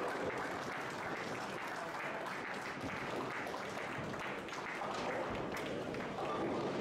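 Steady applause over the clatter of a bowling centre.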